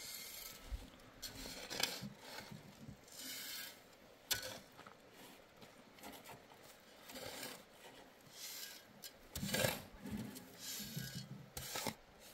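Irregular scraping and rubbing strokes against a hard surface, with a few sharper, louder strokes among them.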